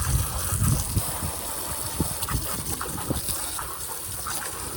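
Water gushing and splashing out of the drain opening of a Suburban RV water heater as it is flushed, carrying out loosened sediment. It is heaviest in the first second, then runs on more evenly.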